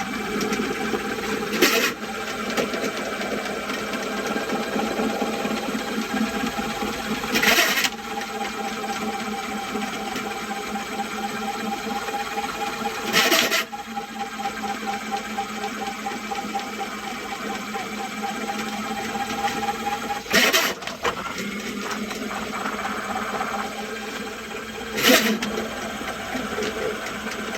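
Spartan 300 drain-cleaning machine running steadily, its motor turning the snake cable down a long, heavily clogged sewer line. A sharp loud knock breaks in five times, every five to seven seconds.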